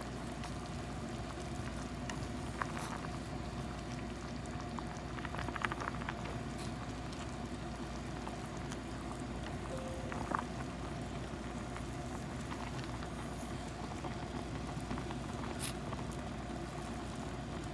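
A pot of wonton soup boiling: a steady bubbling with a few light clicks.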